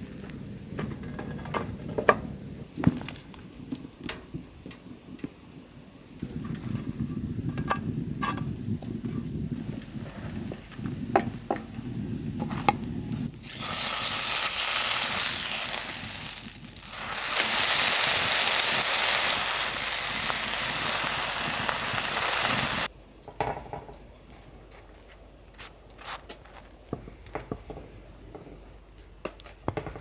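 Bacon strips sizzling loudly in a small square frying pan, starting about a third of the way in, dipping briefly, then cutting off suddenly after about ten seconds. Before and after, quieter clicks and taps of utensils and food being handled.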